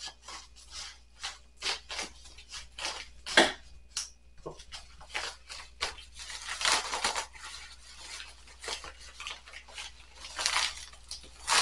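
Yellow padded paper mailer being torn and pulled open by hand, with many short crackles and rustles and two longer tearing stretches, the first about two-thirds of the way through and the second near the end.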